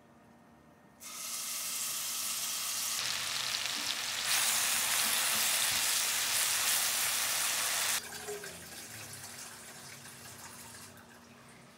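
Food sizzling in hot oil in a pan. The sizzle starts suddenly about a second in, grows louder twice, and cuts off sharply near eight seconds, leaving a fainter sizzle that fades.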